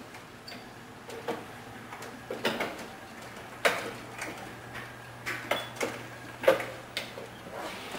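Faint steady low hum with about eight light knocks and clicks scattered through it.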